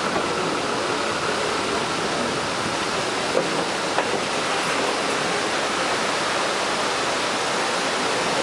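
Steady rushing of Stoney Creek Falls heard from a passing train, with two faint clicks about three and four seconds in.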